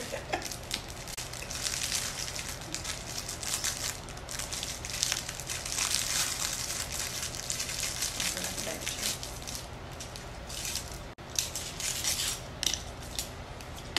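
Clear plastic fortune-cookie wrappers crinkling and crackling in quick, irregular bursts as they are handled and torn open.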